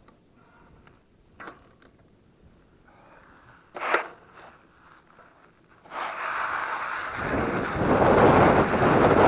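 A few faint clicks and one sharp knock as the electric mountain bike is handled, then from about six seconds in a rushing noise of wind on the helmet microphone and tyres on gravel builds up and grows loud as the bike gets under way.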